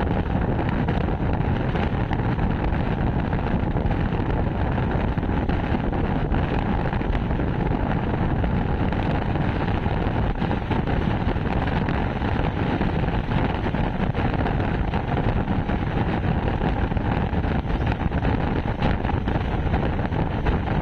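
A moving train running steadily, with wind on the microphone over the rumble.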